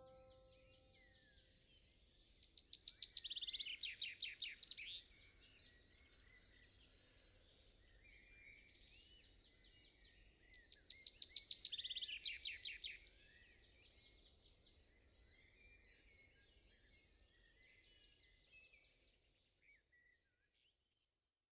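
Songbirds singing, several at once, with rapid trills and runs of repeated high notes, louder in two stretches; the birdsong fades out near the end.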